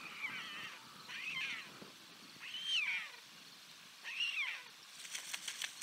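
White stork chicks begging on the nest: four calls, each rising then falling in pitch, about a second or so apart, followed near the end by a quick run of ticks.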